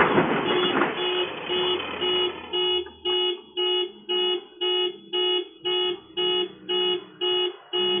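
A car alarm honking in even pulses, about two a second, set off by a truck crashing into parked cars. Noise from the impact dies away in the first second before the pulses start.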